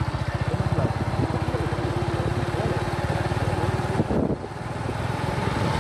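Motorcycle engine running as the bike is ridden along the road, its firing pulses steady. About four seconds in the engine note drops briefly, then builds again as the throttle opens.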